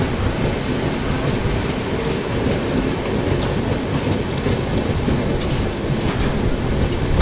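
Rain and rushing wind at the open door of a moving passenger train, over a steady low rumble, with scattered sharp ticks of raindrops.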